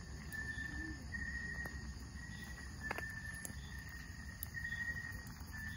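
An insect trilling in a steady high tone, in repeated pulses of about half a second to a second with short breaks between, over a low background hum. A single sharp click comes about three seconds in.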